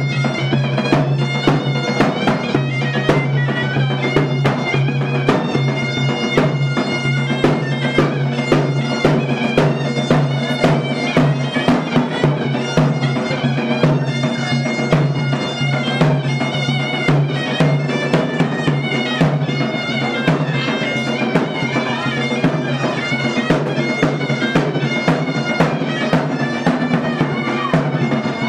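Yazidi Kurdish wedding dance music: a piping wind-instrument melody over a steady low drone, driven by a regular drum beat.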